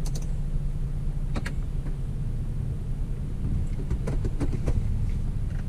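Hyundai Azera V6 idling with its rear mufflers removed: a steady low drone heard from inside the cabin. A few light clicks, several of them around four seconds in.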